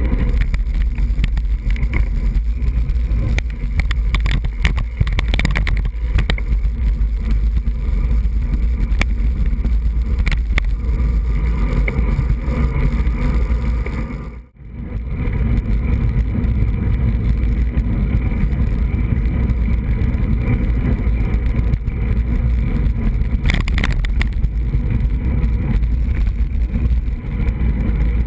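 Wind buffeting the microphone of a camera on a moving road bike: a loud, steady low rumble mixed with road and tyre noise and occasional short rattles. It drops out briefly about halfway through, then resumes.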